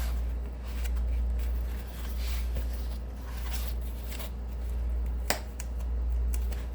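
Hands working at a cardboard mailer box holding vinyl records, trying to pry and tear it open: rustling and scraping of cardboard with scattered clicks and one sharp snap about five seconds in.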